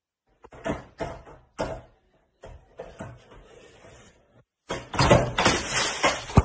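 Skateboard on a hardwood floor: a few sharp knocks of the board against the floor, a short stretch of wheels rolling, then a loud, longer crash and clatter near the end.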